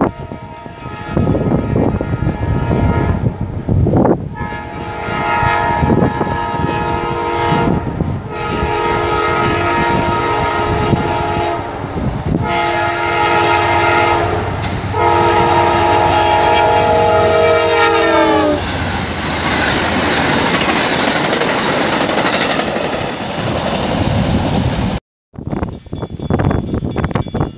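A locomotive's air horn sounds several blasts as the train approaches, and the last long blast drops in pitch as the locomotive passes. The rumble and rail clatter of the train going by follow. The sound cuts out briefly near the end.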